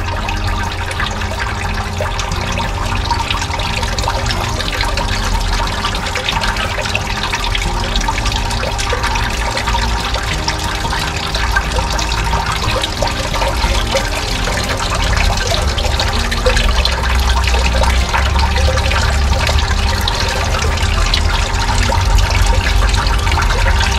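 GoldenShark GS 12V bowl concentrator running: water swirling and churning in the bowl over a steady pump hum. This is the washing stage, in which light sand is lifted out and carried off while heavy gold stays behind.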